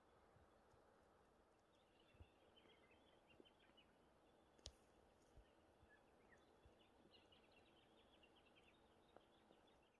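Near silence in the bush, with faint chirping bird calls in two spells and a few soft clicks, the sharpest a little under five seconds in.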